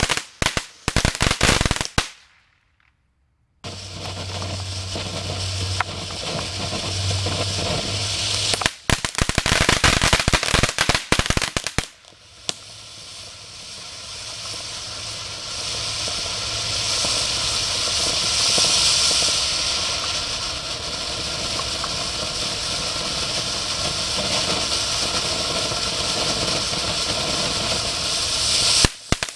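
Consumer firework ground fountains: dense crackling pops for the first two seconds and again from about nine to twelve seconds in. Between and after them comes the steady spraying hiss of a sparks fountain, the longest from about twelve seconds until crackling picks up again at the very end.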